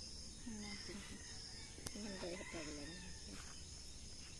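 A rooster crowing faintly, over a steady high-pitched insect drone, with faint voices now and then.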